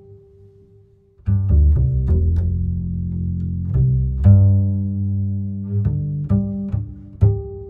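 Background music of low string notes, some plucked with sharp attacks and others held. It drops almost to a pause about a second in, then the notes come back.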